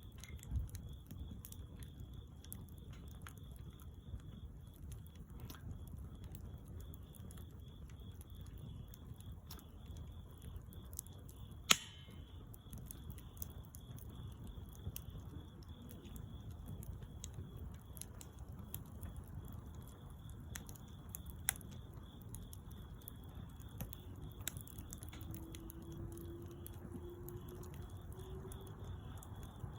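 Bonfire crackling softly with scattered small pops and one sharp loud pop about twelve seconds in. A steady thin high-pitched tone runs underneath, and a faint rising tone comes in near the end.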